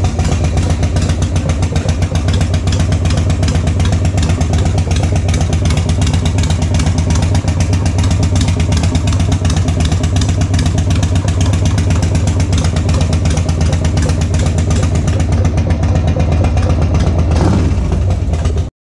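Harley-Davidson Sportster's air-cooled V-twin, freshly bored to 1275 cc with a new top end, running steadily at idle just after a cold start, with the choke pulled out a tiny bit, during its break-in heat cycle.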